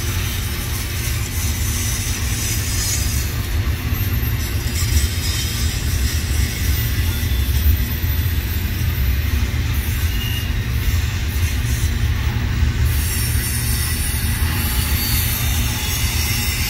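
Double-stack intermodal container well cars rolling past: a steady low rumble of steel wheels on rail.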